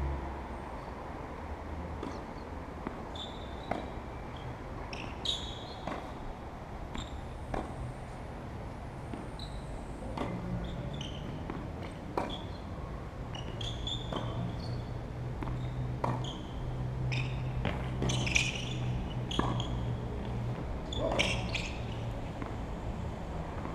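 Tennis balls being struck by rackets and bouncing on the court: sharp pops every one to two seconds, some with a short high ping, over a steady low rumble.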